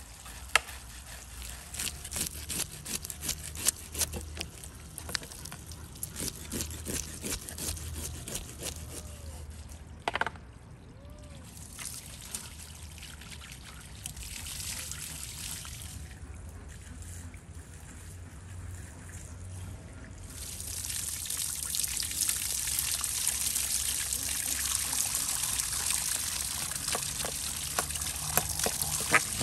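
Knife scraping the scales off a grass carp in many short strokes. About two-thirds of the way in, water from a garden hose starts pouring steadily over the fish while the scraping goes on.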